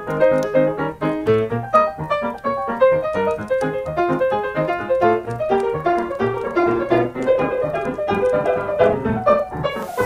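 Piano music playing a quick run of notes. A hiss comes in just before the end.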